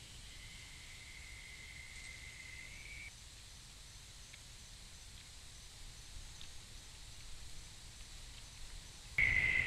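A steady, high-pitched night insect trill over faint trail-camera hiss. The trill stops about three seconds in, leaving only hiss with a few faint ticks, then returns abruptly and louder near the end.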